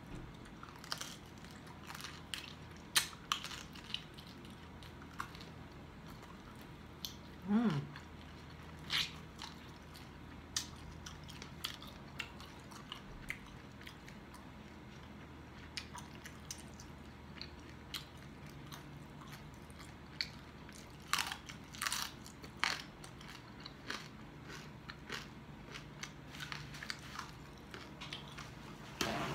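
Close-up chewing and biting of crispy deep-fried pork hock skin (lechon kawali), scattered crackly crunches, with a run of louder crunches about two-thirds of the way through.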